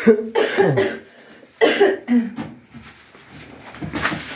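A person with a cold and sore throat coughing, about four short coughs in the first two seconds or so.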